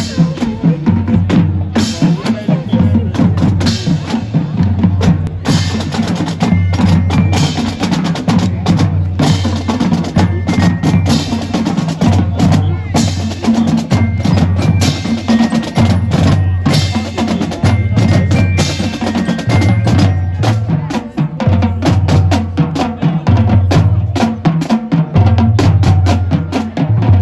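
High school marching band drumline playing a marching cadence: a steady beat of bass drums under snare drums and rolls.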